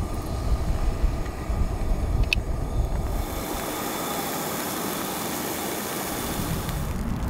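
Garlic and freshly poured liquid sizzling in a cast-iron skillet on a gas camp stove. Wind rumbles on the microphone for the first three seconds or so, then drops away, leaving a steady hiss.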